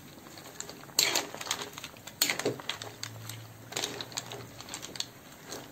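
Metal spatula clacking and scraping against a wok while mussels and pechay are stirred, in irregular sharp clacks a second or so apart.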